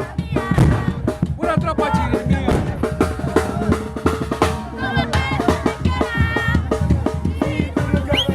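Chirimía band playing live: drums keep a steady beat under a melody.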